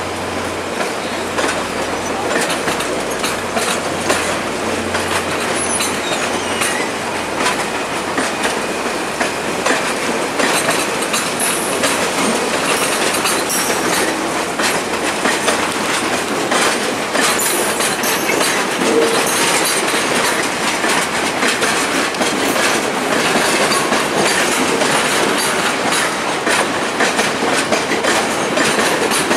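Stainless-steel passenger cars of VIA Rail's The Canadian rolling past with a steady rumble, their wheels clicking over rail joints and switches.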